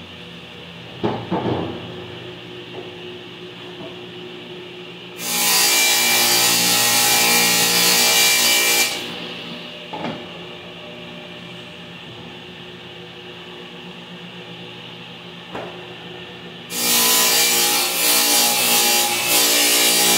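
Table saw ripping plywood panels twice: two loud cuts of about four seconds each, with the saw running steadily in between. A few knocks between the cuts.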